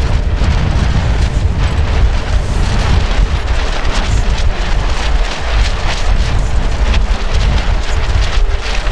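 Strong wind buffeting the microphone in a heavy, uneven rumble, over the rush and splash of water along the hull of an Etchells keelboat under sail.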